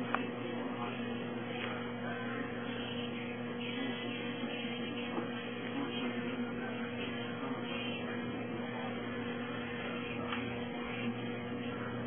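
Steady electrical mains hum over a constant background hiss, with a few faint clicks.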